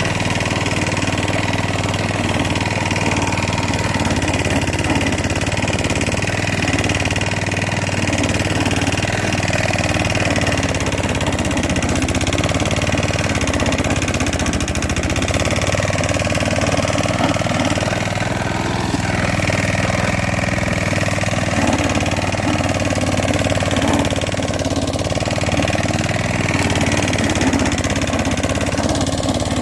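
Petrol engine of a Klippo walk-behind lawn mower running steadily under way, a constant hum with some shifting in the higher noise as it works the lawn.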